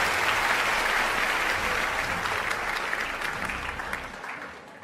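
Large audience applauding, the dense clapping fading out over the last second or two.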